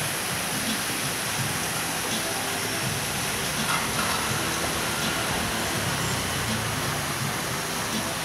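Small motor scooter's engine running as it rides past, over a steady hiss of rushing water.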